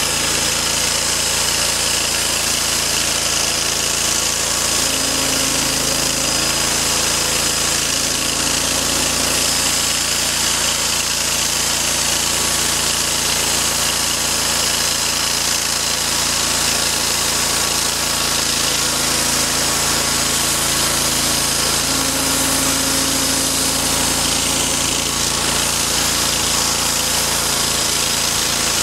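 Wood-Mizer portable band sawmill running steadily at full power while sawing a pine log into boards. A low hum comes in and out twice over the steady noise.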